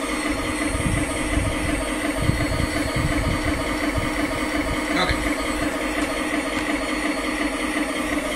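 Heng Long King Tiger RC tank's sound unit playing a simulated tank engine idle through its small built-in speaker, a steady unchanging rumble.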